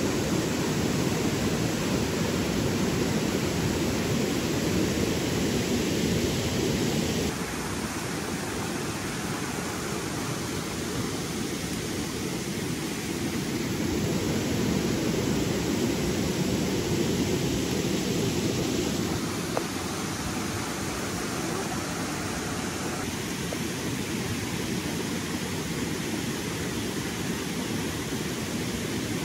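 Steady rush of flowing stream water, with the level stepping down slightly about seven seconds in.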